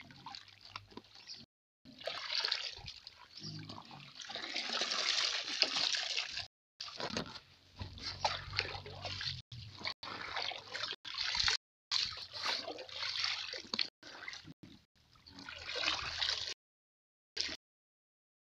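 Pond water sloshing and trickling as a scoop net is drawn through floating azolla and lifted, water draining back out of the mesh, in uneven spells broken by a few abrupt silences.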